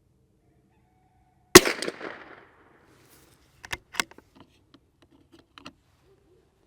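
A single .22LR shot from a CZ 457 Varmint MTR bolt-action rifle, about a second and a half in, with a short echoing tail. It is followed a couple of seconds later by a handful of sharp metallic clicks as the bolt is worked.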